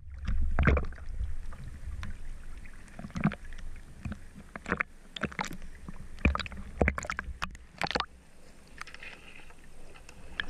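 Water sloshing and splashing, with irregular sharp knocks and clicks over a low rumble.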